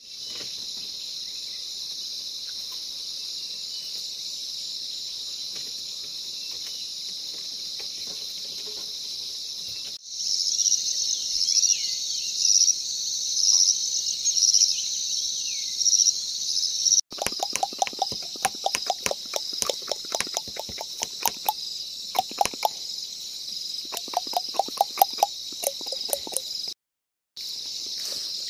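Forest night chorus of insects and frogs: a steady high insect buzzing, which turns louder and pulsing about a third of the way in. In the last third, rapid trains of frog croaks and sharp clicks join in. The sound breaks off abruptly between sections.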